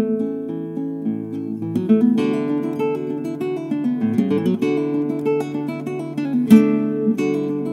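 Background music on acoustic guitar, plucked notes and strums, with one sharp hit about six and a half seconds in.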